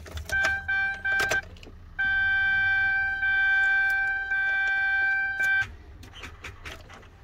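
Chevrolet half-ton truck's dashboard warning chime: two short beeps, then one long steady tone of about three and a half seconds, with a few sharp clicks as the key is turned. The electrics wake up on a battery too weak to start the engine, which does not catch.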